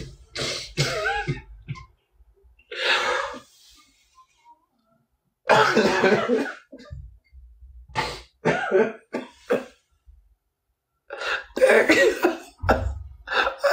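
A person's voice in a series of loud, harsh, cough-like outbursts, several bursts with short silences between them.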